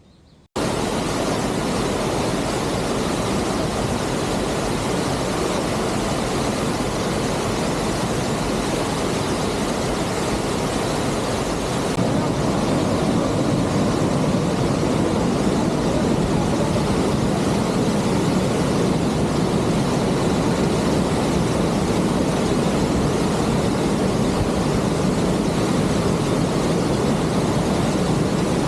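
Waterfall rushing as a loud, steady roar of falling water, a little louder from about twelve seconds in.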